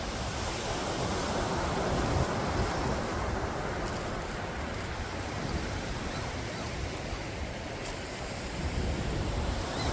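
Ocean surf washing onto the beach in a steady, rolling wash, with wind on the microphone.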